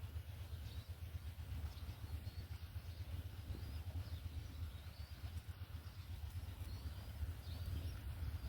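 Short, thin, faint bird chirps, each a quick upward sweep, about ten of them spread unevenly, over a steady low rumble.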